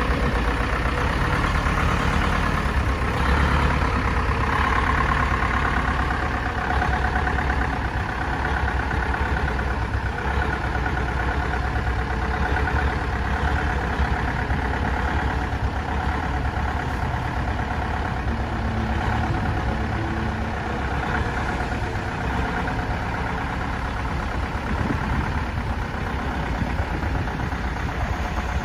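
Bedford TK lorry's engine running at low revs as the truck moves slowly forward, a little louder in the first few seconds and then settling into a steady idle.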